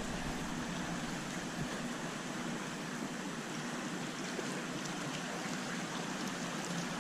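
Creek water running steadily, an even rushing hiss.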